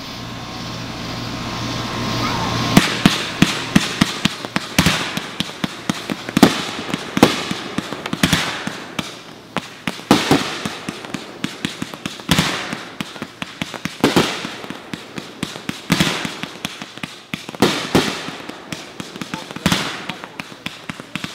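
Fireworks going off: a rising hiss, then from about three seconds in a rapid, dense run of sharp bangs and crackles, several a second, as shells burst overhead.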